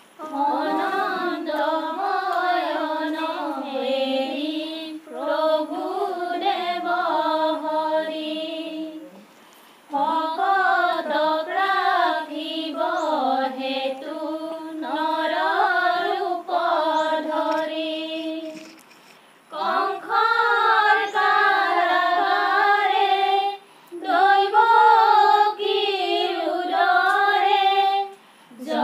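A group of women singing an Assamese devotional nam without instruments, in long phrases of held, wavering notes broken by short pauses for breath.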